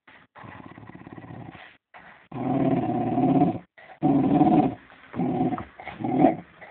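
Fox terrier play-growling in a string of rough bouts, quieter at first and louder from about two seconds in.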